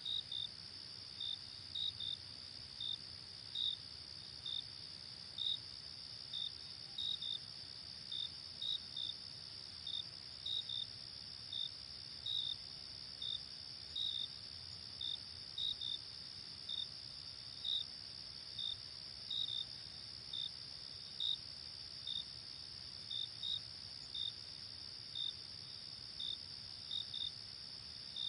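Night chorus of crickets: short chirps, often in pairs, about one or two a second, over a continuous high insect trill.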